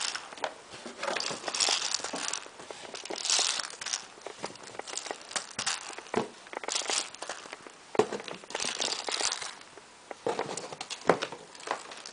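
Packaging crinkling and rustling in repeated bursts as airsoft pyro grenades are handled and unpacked, with a few sharp knocks as they are set down.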